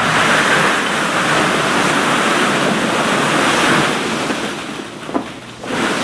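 Vinyl of an inflatable pool rustling and plastic ball-pit balls clattering and spilling as the ball-filled pool is heaved up, a dense, steady rushing noise that eases briefly near the end.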